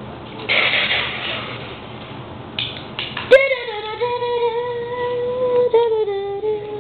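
A high voice holds one long sung note for about three seconds, dipping slightly in pitch near the end. It follows a sharp click, and a short hissy rush of noise comes about half a second in.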